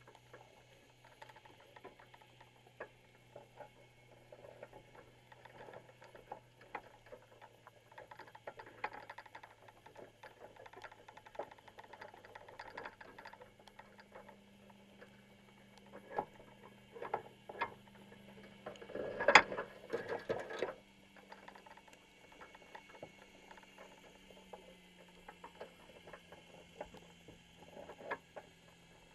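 Underwater sound heard through an action camera's waterproof housing on a baited crab trap: scattered clicks and taps, with a low steady hum that moves to a higher note about halfway through. A burst of louder knocks comes about two-thirds of the way in.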